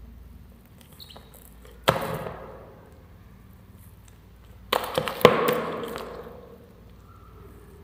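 Sharp knocks, one about two seconds in and a quick cluster of three about five seconds in, each dying away over a fraction of a second.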